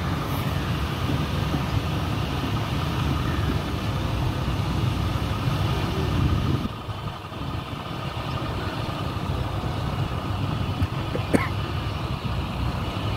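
Diesel engines of a combine harvester and a tractor idling steadily. The sound drops a little about seven seconds in, and a brief sharp sound comes near the end.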